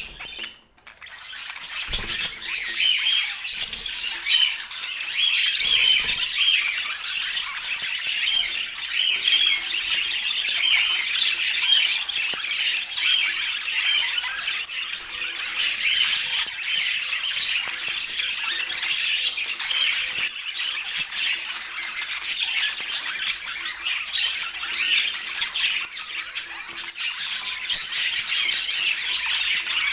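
Budgerigars chattering: a dense, continuous stream of short high chirps and warbles, after a brief lull just under a second in.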